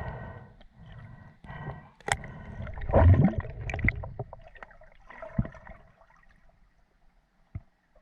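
Water gurgling and sloshing around a spearfisher in the water, with a louder gurgling surge about three seconds in and a few sharp clicks.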